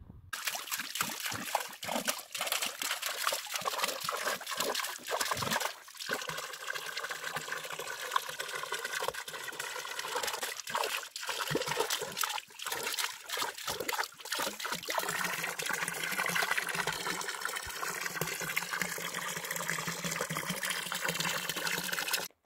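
Spring water pouring from a fountain spout into a stone trough, a steady splashing that cuts off abruptly near the end.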